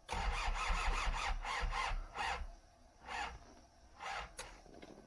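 Toyota Hiace's starter motor cranking the engine for about two seconds, then three short cranks about a second apart, without the engine catching: a failed cold start in deep cold.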